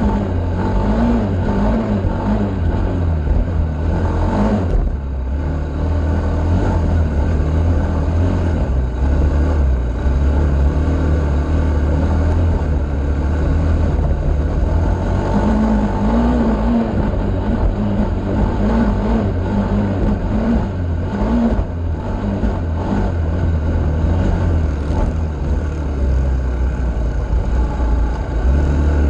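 Engine of an off-road vehicle running steadily while riding a sandy trail, its revs rising and falling now and then, under a heavy low rumble.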